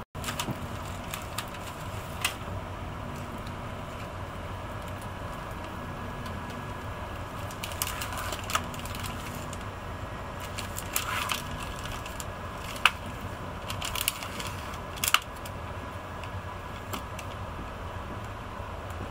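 Cabin noise inside a moving Renfe AVE S-102 (Talgo 350) high-speed train: a steady low rumble and a faint steady hum, with scattered sharp clicks and rattles, the loudest in the second half.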